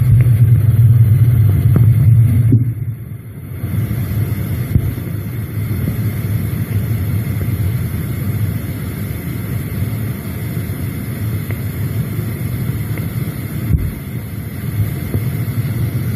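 Continuous low mechanical rumble and hum picked up through a borehole casing, which the recorder takes for underground tunnel-digging machinery. It is loudest for the first two and a half seconds, drops briefly about three seconds in, then runs on steadily.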